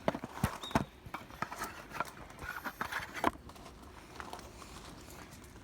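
A few scattered light knocks and clicks, irregularly spaced, with the loudest about three seconds in.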